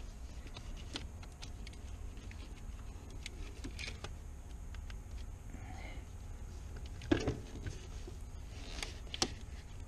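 Scattered small clicks and knocks of plastic fuel-vapour line fittings being handled and pushed together by hand, with a sharper knock about seven seconds in, over a faint steady hum.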